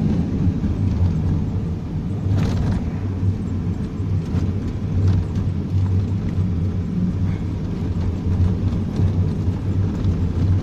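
Steady low rumble of a delivery vehicle's engine and tyres on the road while driving.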